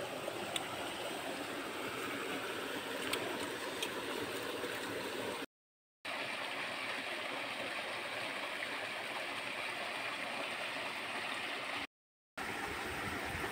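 Steady rushing of a forest stream's running water, which drops out twice for about half a second.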